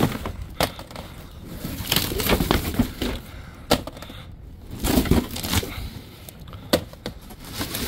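Tins and boxed gift sets being handled and tossed: a few sharp knocks and clatters with cardboard and packaging rustling between them.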